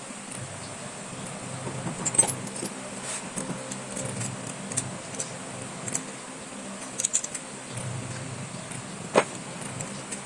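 Small metal parts of a motorcycle starter motor clinking and tapping as it is handled while new carbon brushes are fitted, with sharper knocks about two, seven and nine seconds in.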